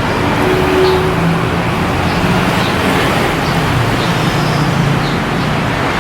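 Steady road-vehicle noise: an engine running with tyre and road rumble, as heard riding in or beside traffic.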